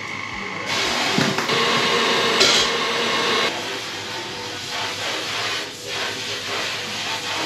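Kitchen robot's motor running with a steady whine, turning louder and hissier about a second in, then easing a little after about three seconds.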